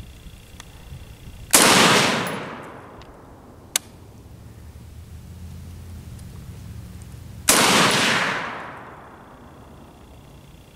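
Two shots from an AR-15-style rifle fired prone, about six seconds apart, each trailing off in a long echo over about a second. A single light click falls between them.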